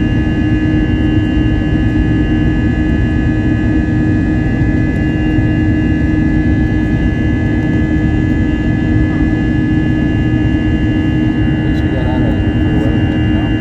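Airbus A321 jet engines and airflow heard inside the passenger cabin in flight: a steady loud rumble with a constant low hum and several thin, high whining tones. A voice is faintly heard near the end.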